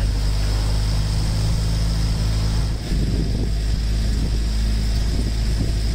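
Fishing boat's engine running at a steady pace, a constant low hum with wind and sea noise over it.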